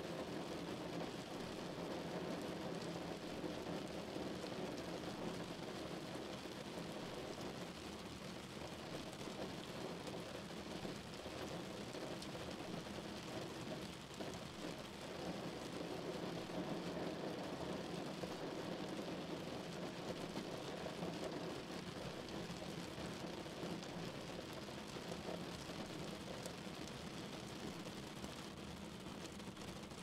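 Heavy rain falling steadily on a car.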